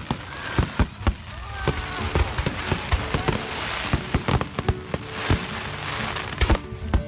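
Fireworks display: rapid, irregular bangs over continuous crackling, with a few short whistles.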